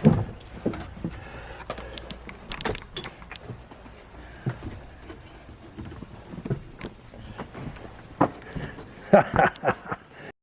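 Footsteps and creaking on old wooden boards with scattered knocks and clicks, and a quick cluster of louder knocks near the end.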